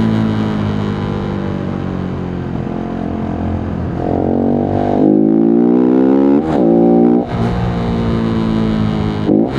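Voge 125R's single-cylinder 125cc engine under way: running steadily, then the throttle opens about four seconds in and the pitch rises, with brief sharp drops at gear changes a couple of times and again near the end.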